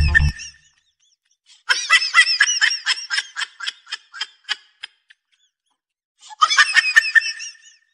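High-pitched laughter: a run of quick 'ha-ha' pulses, about four a second, that fades out over roughly three seconds, then a second, shorter burst of laughing near the end.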